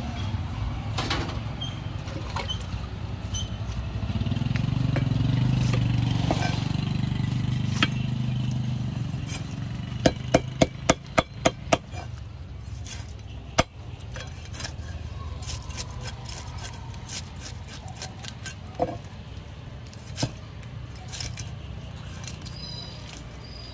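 A motor vehicle passing, its low engine rumble swelling and then fading away. Then comes a quick run of about eight sharp knocks in under two seconds, with a few single knocks later.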